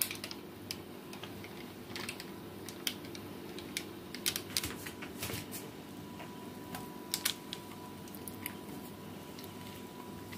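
Scattered light clicks and taps at irregular intervals as thick cake batter is poured from a metal mixing bowl into a parchment-lined glass baking dish.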